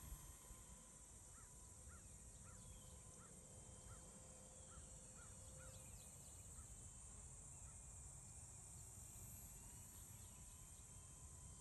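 Near silence with faint rural ambience: a steady high insect drone, and a series of short bird calls, about three a second, from about a second in to six seconds in.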